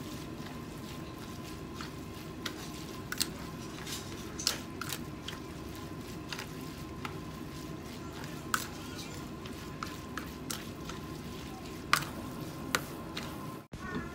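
Plastic spoon tossing seasoned glass noodles in a plastic bowl: soft wet squishing with scattered light clicks of the spoon against the bowl, over a steady background hum.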